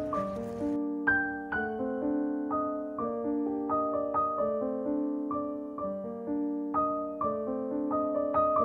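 Background piano music: a gentle melody of struck notes and chords, about two a second, each ringing and fading.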